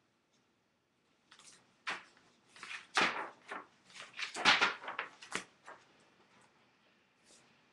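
A cluster of rustling and bumping handling noises from about one to six seconds in, loudest around the middle.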